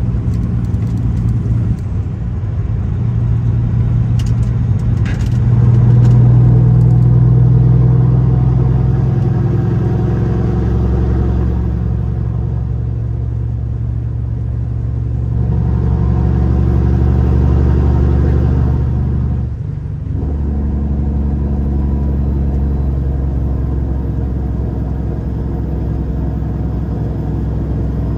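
Semi truck's diesel engine running at highway speed: a steady low drone with road noise. It swells a couple of times and drops away briefly about twenty seconds in.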